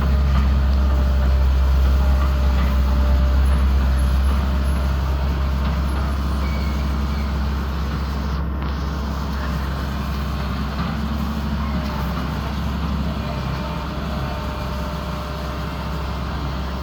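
An engine running steadily: a continuous low hum that eases slightly in level about four seconds in.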